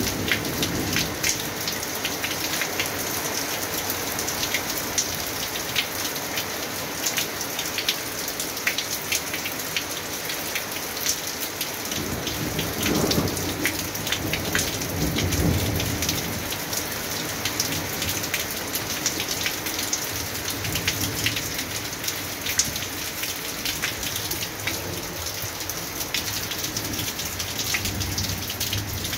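Steady rain falling in a thunderstorm, with many individual drops spattering close by. A low rumble of thunder rolls through about halfway.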